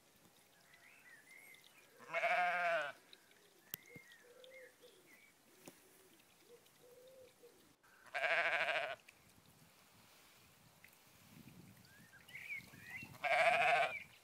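A sheep bleating three times, each call under a second long with a wavering, quavering pitch, the calls about five to six seconds apart. Faint bird chirps can be heard between the bleats.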